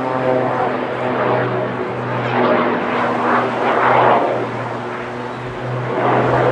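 Jet Pitts aerobatic biplane in a climbing manoeuvre: a steady propeller-engine drone whose pitch shifts about a second in, with several swelling washes of rushing noise.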